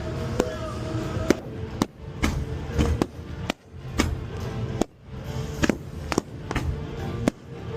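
Fireworks bursting in a quick series of sharp bangs, roughly one or two a second, over a music soundtrack with steady held notes.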